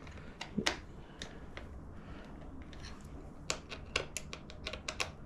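Light, irregular clicks and taps of a hand tool as a turn signal's mounting is given a final tightening. A few single clicks come first, then a quicker run of clicks about three and a half seconds in.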